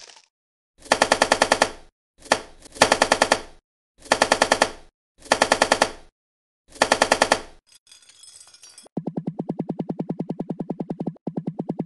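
Edited-in clicking sound effects: about six one-second bursts of rapid, evenly spaced clicks with short gaps between them, then from about nine seconds in a steadier, duller run of about ten pulses a second.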